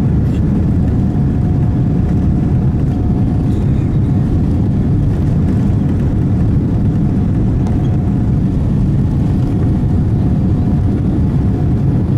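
Inside the cabin of a Boeing 787-9 rolling on the ground: a loud, steady low rumble of the engines and the wheels on the pavement, with a faint whine that comes and goes.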